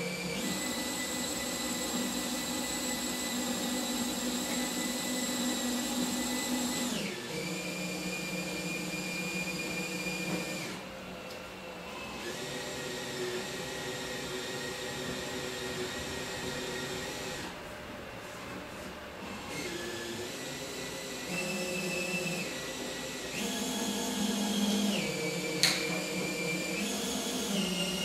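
DeWalt 20-volt cordless drill driving a windshield-removal winder, its motor and gearbox whining as it reels cutting line through the windshield urethane. The speed changes several times as the trigger is eased and pressed, with one sharp click near the end.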